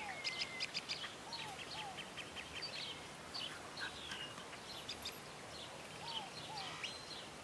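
Birds chirping and twittering. A lower, arched two-note call comes in pairs a few times.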